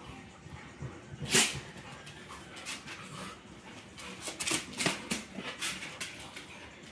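Two golden retrievers play-fighting, making short dog noises of rough play: one loud sharp burst about a second and a half in, then a quick string of short sounds over the last few seconds.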